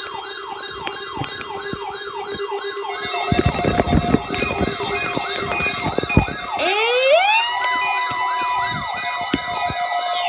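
Electronic siren-style alarm yelping about twice a second. About seven seconds in, a tone slides up and holds steady near 1 kHz. This fits the NOAA Weather Radio warning alarm tone sounded for a weekly test.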